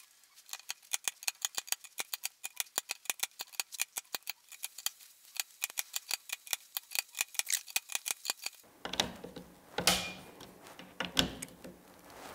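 Torque screwdriver clicking in a fast, even series, about five clicks a second, as scope-ring cap screws are tightened toward 25 inch-pounds. After about nine seconds the clicking stops and gives way to handling noise with a couple of louder knocks.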